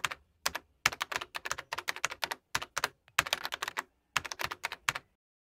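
Keyboard typing: quick bursts of sharp key clicks with short pauses between them, stopping abruptly about five seconds in.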